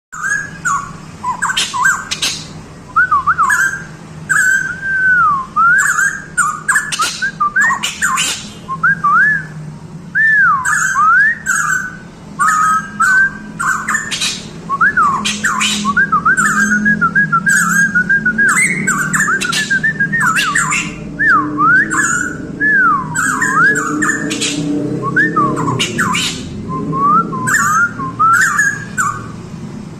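Pitohui, known in Indonesian bird-keeping as 'cucak rowo Papua', singing a long run of loud whistled phrases that slide up and down in pitch, broken by short sharp notes. A steady low hum runs underneath.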